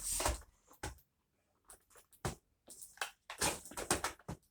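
Scattered short clicks, knocks and rustles of the upright vacuum cleaners being handled, with quiet gaps and no motor running.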